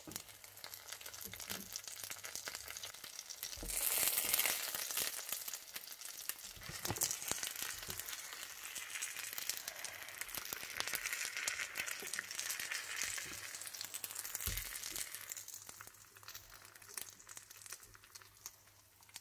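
Caramel and oil sizzling and crackling in a frying pan around apple spring rolls (turon), with a few clicks and knocks of tongs against the pan. The sizzle swells about four seconds in and dies down for the last few seconds.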